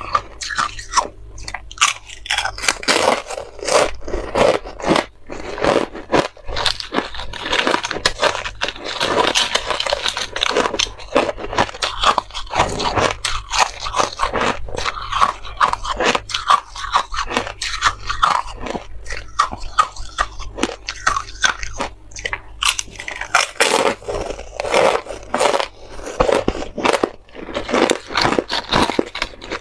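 Biting and chewing frozen buckwheat ice discs, some coated with matcha powder: a dense, continuous run of crisp cracks and crunches.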